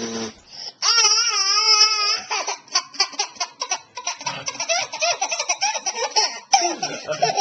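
Baby laughing hard: about a second in, a long, high, wavering squeal of laughter, then a run of quick, choppy belly laughs.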